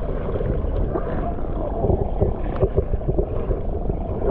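Muffled water sloshing and gurgling against a GoPro held just at the surface of a swimming pool, with a steady low rumble of water moving over the microphone.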